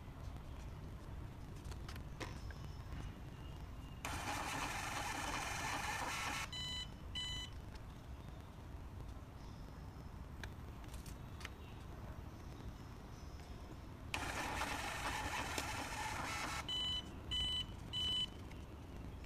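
Wisecard WCT-N9220 handheld POS terminal's built-in thermal printer running twice, each time about two and a half seconds of even whirring as it feeds out a receipt. The terminal beeps just after each run: twice after the first, three times after the second, with faint touchscreen taps between.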